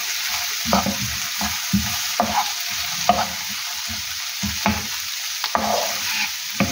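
Sliced onions sizzling in hot oil in a non-stick frying pan, with a steady hiss. A wooden spoon stirs them, scraping and knocking against the pan in quick, uneven strokes. The onions are being fried until light brown.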